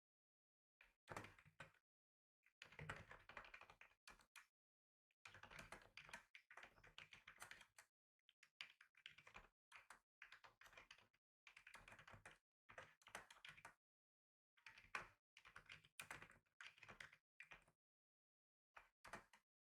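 Faint typing on a computer keyboard, in quick runs of keystrokes lasting one to a few seconds, broken by short pauses.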